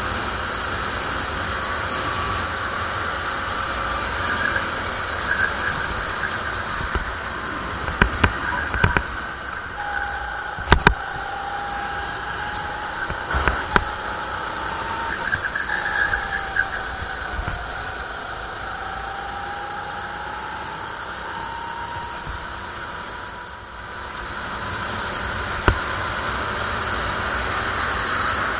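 Onboard sound of a 270cc four-stroke rental go-kart engine running at speed round a circuit, its pitch rising and falling with the throttle over a steady hiss of wind and road noise. Several sharp knocks come about a third to halfway through, and the engine briefly drops in level about four-fifths of the way in before building again.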